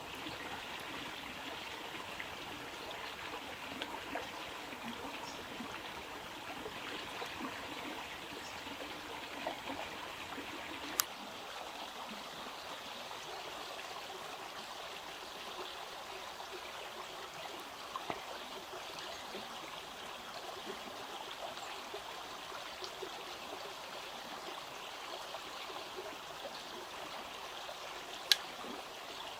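Steady running water, an even trickling flow, with two sharp clicks about eleven seconds in and near the end.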